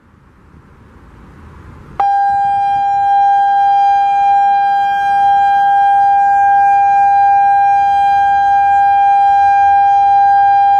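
Genasys LRAD DS-60XL speaker arrays sounding the steady warning tone of an outdoor emergency warning system test. The tone comes on suddenly about two seconds in, after faint wind noise, and holds at one pitch without wavering.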